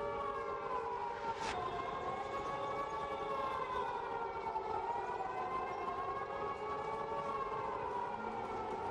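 Civil defence warning siren wailing, its pitch sliding slowly down and back up over several seconds above a steadier lower tone.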